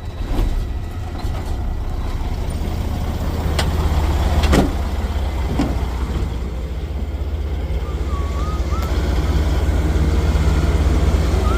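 Heavy farm machine's diesel engine droning steadily, heard from inside the cab. There are a couple of sharp clicks, and a louder knock about four and a half seconds in.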